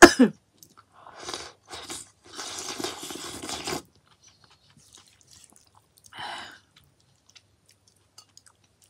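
Close-miked eating sounds of kimchi ramen. A cough cuts off right at the start. Then come short mouth noises and a slurp of over a second as broth is sipped from the rim of the plate, with quiet chewing.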